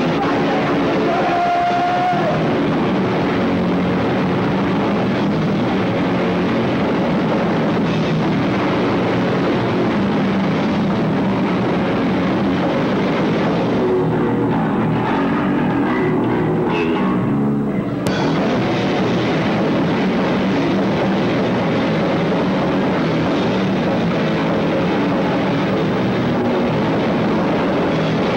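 A live band playing loud rock music: electric guitar and drums.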